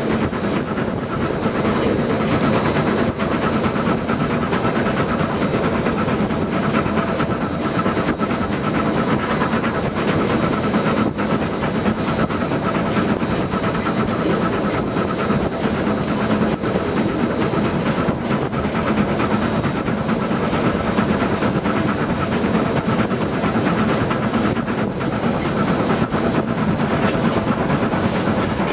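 Train running along the track, heard from on board: a steady rumbling running noise with scattered sharp rail clacks and a thin steady high whine.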